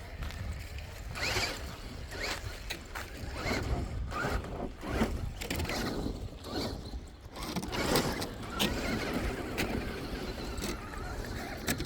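Axial SCX6 Honcho RC crawler's electric motor whining in short throttle bursts, the pitch rising and falling again and again, with scattered clicks and a steady low rumble underneath.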